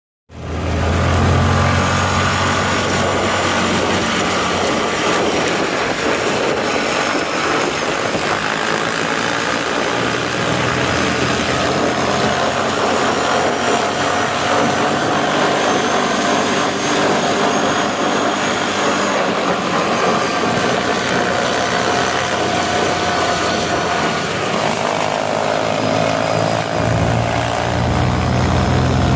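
Small motorbike engines running at steady riding speed, mixed with the rush of wind and tyres on gravel. The engine note drifts slightly in pitch, and a low hum grows stronger near the end.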